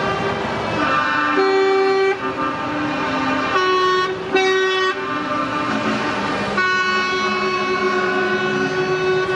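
Truck horns sounding from passing trucks: a blast about a second in, two short blasts around four seconds in, and a long held blast starting about six and a half seconds in. Truck engines run underneath.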